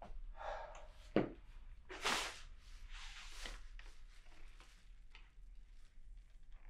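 Quiet, scattered handling noises of a broom being picked up and moved: a soft knock about a second in, then two brief swishing scrapes.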